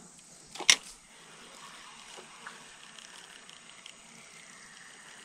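Spinning rod and reel being cast and retrieved: one sharp, loud crack under a second into the cast, then a faint, steady low hiss while the lure is reeled in.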